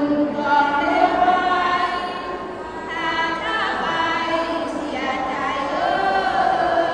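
A group of women singing sarabhanya, the Thai Buddhist devotional verse chant, in unison, led by one voice on a microphone: a slow melody of long held notes.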